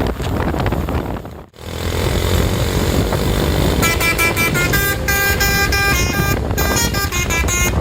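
Bus's basuri telolet horn playing a quick tune of short stepped notes, starting about four seconds in, over engine and road noise.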